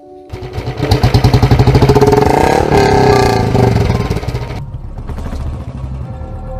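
Motorcycle engine revving hard as the bike pulls away, with a rapid, even firing beat and a rising and falling pitch. It drops to a quieter steady run about two-thirds of the way through.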